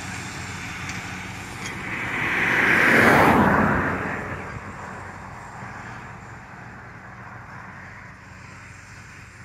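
JCB Fastrac tractor towing a silage trailer drives past over maize stubble and away. Its engine and the trailer's rumble grow loudest about three seconds in, then fade steadily as it pulls away.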